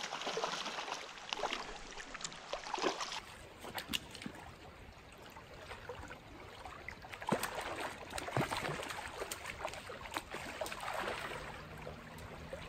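Flowing creek water with scattered splashes as a hooked rainbow trout thrashes at the surface while being played to the net.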